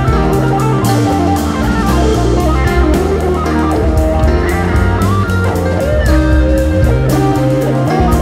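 Live band music led by an electric guitar playing a melodic line with bent notes, over bass guitar and a drum kit.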